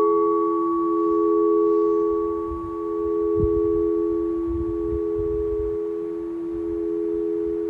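Two singing bowls ringing on after being struck, their two steady tones sustaining and slowly wavering in loudness as they decay.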